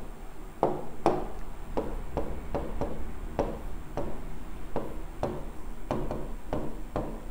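Writing on a board: a string of short, irregular taps and strokes, about three a second.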